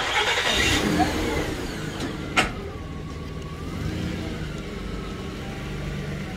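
Motor vehicle engine on the street: a sudden burst of noise in the first second, then a steady low engine hum with a whine that rises and falls. A sharp click sounds about two and a half seconds in.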